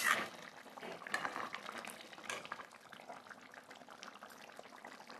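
Thick mushroom curry gravy bubbling in a pot, a steady quiet simmer of small pops and blips, with a sharper knock at the very start and a few louder pops in the first two seconds or so.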